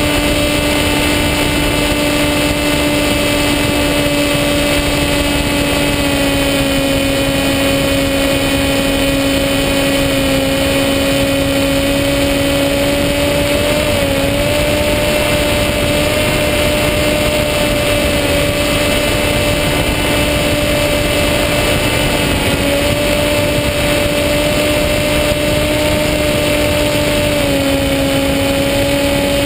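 Electric motor and propeller of a SkyWalker FPV plane, heard from onboard: a loud, steady droning whine with a rushing noise underneath. Its pitch dips slightly a few times.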